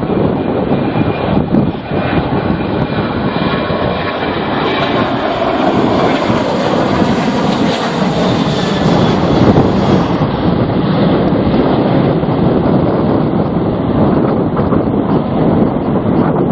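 Aircraft engines running as a plane passes, a high whine swelling and fading over a few seconds in the middle, under strong storm wind buffeting the microphone.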